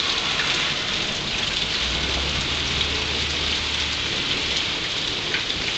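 Heavy rain pouring steadily onto a street, lawns and standing water during a thunderstorm downpour. A low rumble sits under it for about two seconds in the middle.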